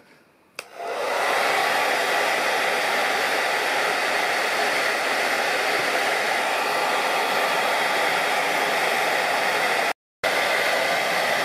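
Remington hand-held hair dryer switched on with a click, then running steadily on its low speed, hot setting, to soften the glue holding a headphone speaker driver in place. The sound cuts out for a moment near the end, then resumes.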